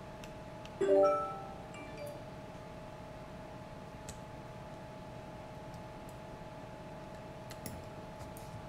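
Small tool clicks and taps during soldering-iron desoldering work on a drone's flight controller, with one loud ringing metallic clink about a second in that dies away quickly. A steady faint hum runs underneath.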